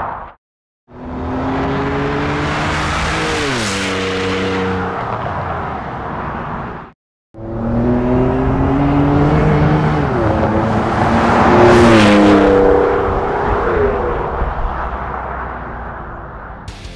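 Ford F-150 pickup with a Borla cat-back exhaust accelerating hard past the microphone in two runs, split by a short cut. In each run the engine note climbs, drops at an upshift and climbs again. The second run, on the Borla ATAK system, is loudest as it passes about twelve seconds in and then fades away.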